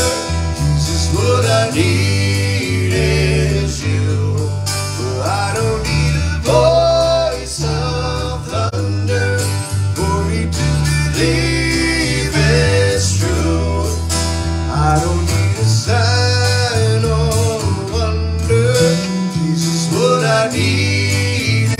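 Live country-gospel band music: acoustic and electric guitars over changing low bass notes, with a melody line that bends and glides above.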